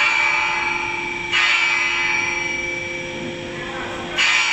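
Steady machinery noise with several constant whining tones under a hiss, stepping up in loudness abruptly about a second in and again near the end.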